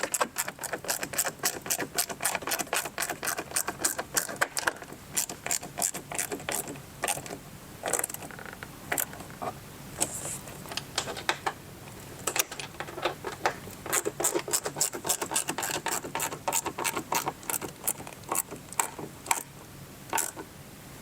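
Hand Phillips screwdriver ratcheting in quick runs of sharp clicks, broken by short pauses, as mud flap screws are driven tight.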